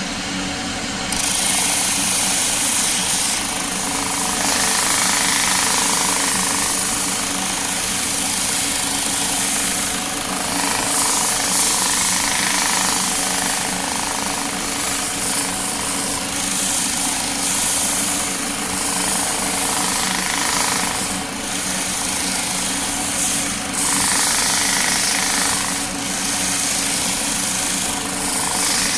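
Rental drum floor sander running, with a piece of 2x6 lumber worked back and forth against its spinning sanding drum to chip built-up polyurethane off the clogged sandpaper. A steady motor hum under a loud grinding hiss that gets louder about a second in.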